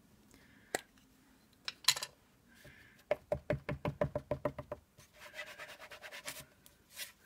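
A rubber stamp and ink pad being tapped together while inking the stamp: a couple of single knocks, then a quick run of taps about eight a second for two seconds, followed by a softer scratchy rubbing.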